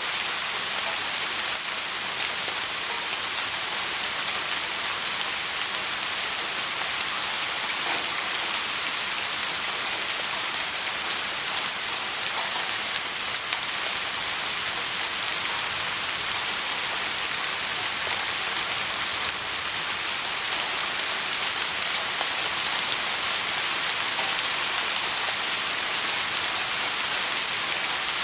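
Steady soft rain falling on a surface, an even hiss of many fine drops without thunder.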